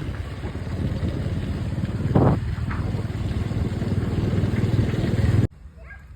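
An engine running steadily, with a brief louder burst about two seconds in; it cuts off suddenly near the end.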